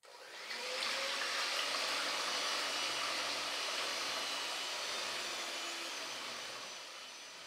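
Electric hand mixer running at a steady speed, its beaters whisking whole eggs in a plastic bowl to beat them up for a sponge cake batter. It starts suddenly and gradually fades toward the end.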